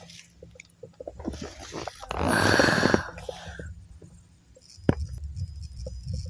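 Camera handling: faint clicks of small buttons being pressed, with a short breathy rush lasting about a second, about two seconds in.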